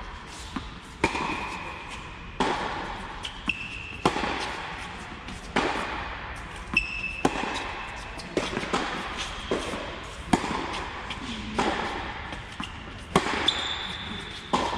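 Tennis rally on an indoor court: racket strikes and ball bounces about once a second, each with an echoing tail in the hall, with short high squeaks of shoes on the court between shots.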